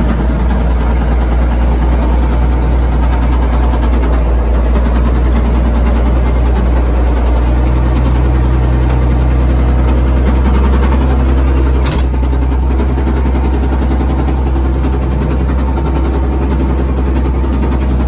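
Komatsu WA180 wheel loader's diesel engine running steadily, heard from inside the cab; the engine has a rod knock and is taken to be finished. A single sharp click about twelve seconds in.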